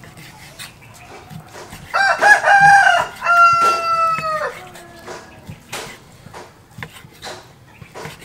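A rooster crows once: a long call that starts about two seconds in, wavers, then holds a steady, slightly falling note before breaking off. Around it are faint knocks of a knife cutting beef on a wooden chopping board.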